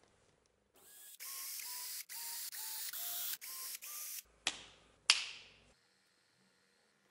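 Cordless drill run in a string of short bursts, drilling holes through leather on a wooden block, followed by two sharp clicks.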